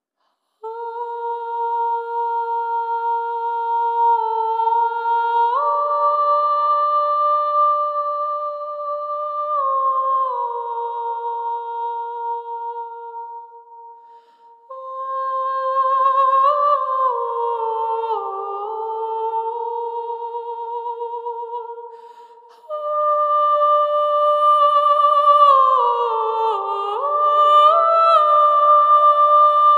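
Slow background melody without words, made of long held notes in a humming tone that step up and down. It fades and starts again abruptly twice.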